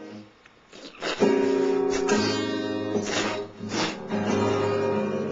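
Guitar music: strummed chords ringing on, with a short lull about half a second in before the strumming picks up again.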